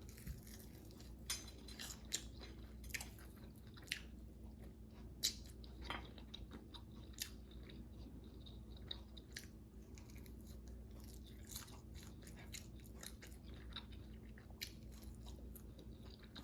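A person biting into and chewing a crispy fried chicken wing, a string of irregular crunches that are loudest in the first few seconds and then thin out.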